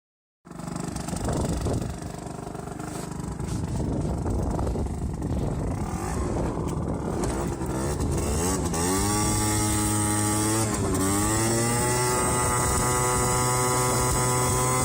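Aprilia SR50's Morini 50cc two-stroke engine running with a leaking exhaust, rough and uneven at first. From about halfway its pitch climbs as it revs up, dips briefly, then climbs again and holds a high steady note.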